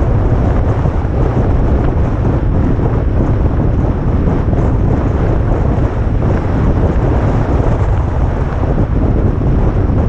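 Wind buffeting the microphone of a camera on a moving vehicle: a loud, steady low rumble that covers everything else.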